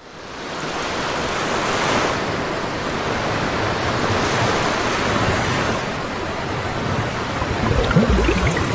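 Ocean surf sound effect, a steady wash of breaking waves that fades in at the start and swells slowly. A few low gliding sounds join it near the end.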